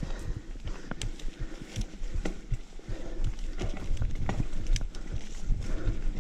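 Mountain bike riding down a rough dirt singletrack: tyres running over dirt and stones, with irregular knocks and rattles from the bike over a constant low rumble.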